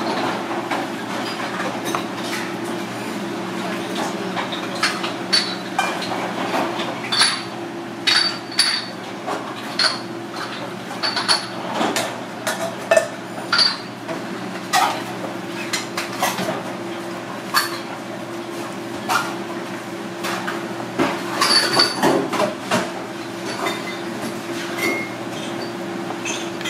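Kitchen knife knocking and clicking on a plastic cutting board as it cuts raw abalone, in short irregular strokes. A steady low hum runs underneath.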